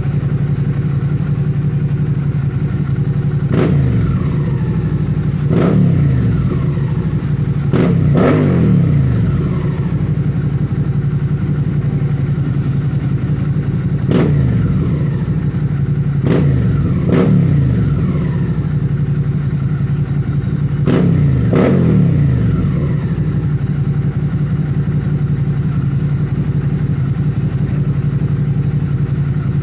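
Suzuki SV650's V-twin engine idling through an aftermarket Akrapovic-copy slip-on exhaust, blipped on the throttle about eight times, sometimes twice in quick succession. Each rev jumps up and falls straight back to idle.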